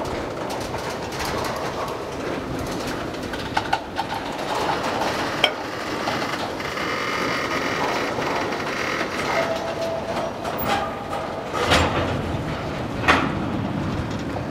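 Freight train of tank cars and covered hopper cars rolling slowly past: a steady rumble of steel wheels on rail, with a few sharp metallic clanks from the cars, the loudest two near the end, and faint thin wheel squeals around the middle.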